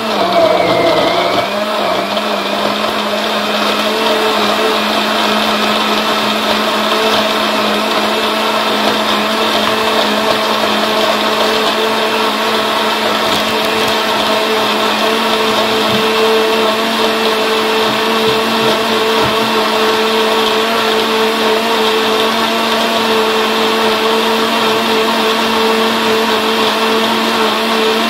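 Countertop blender motor running continuously, blending a thick mix of fruit, cream cheese and milk. Its pitch wavers in the first couple of seconds, then holds steady.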